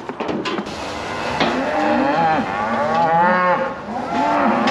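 Cattle bellowing, about three long calls one after another: the cows calling after being separated from their calves. A few short knocks near the start.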